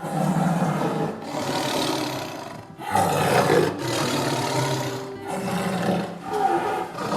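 Tiger roaring and growling several times in a row, each rough call broken by a brief pause, over faint background music.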